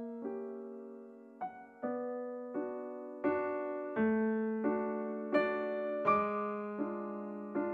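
Background piano music: gentle notes and chords struck at a slow, even pace, about one every three-quarters of a second, each ringing and fading before the next.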